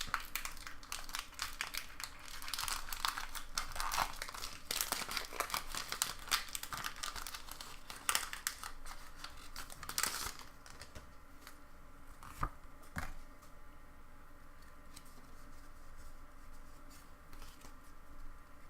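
Foil wrapper of a Pokémon booster pack crinkling and tearing as it is opened, busy for about ten seconds, then quieter with a couple of sharp clicks.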